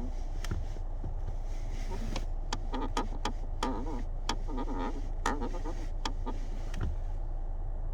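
Clutch pedal of a high-mileage (351,000 km) Škoda Octavia Mk3 squeaking as it is pressed down and let up several times: short wavering squeaks mixed with sharp clicks, over a steady low hum.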